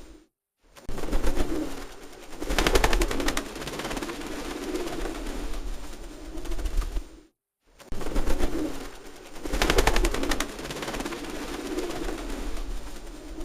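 Pigeons cooing in low, rolling coos. Twice, about two and a half seconds in and again about halfway through, there is a second-long burst of rapid clattering. The sound breaks off into silence for a moment about seven seconds in, and the same sequence then plays again.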